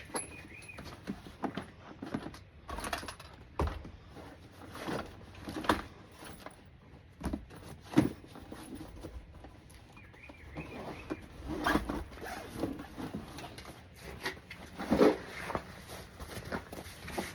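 Scattered knocks, clunks and rustling of gear being handled and packed away, with sharper knocks about eight seconds in and again about fifteen seconds in.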